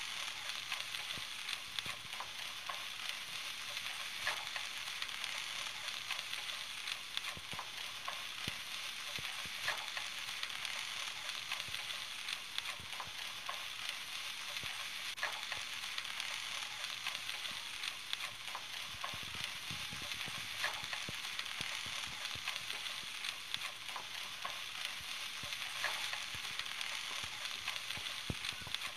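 Sliced onions frying in hot oil in a non-stick pot: a steady sizzle with scattered pops and clicks, stirred now and then with a spatula.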